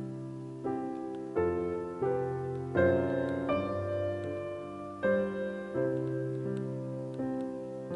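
Background music: piano playing slow, gentle chords, a new note or chord struck about every second and left to ring.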